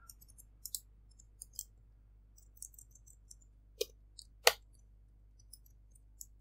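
Scattered soft clicks of typing on a computer keyboard, with two louder clicks a little under a second apart, about four seconds in.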